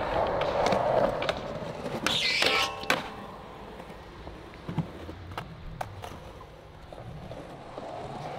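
Skateboard wheels rolling on concrete, with a ringing scrape of a grind about two seconds in. Several sharp clacks follow as the board pops and lands, then quieter rolling.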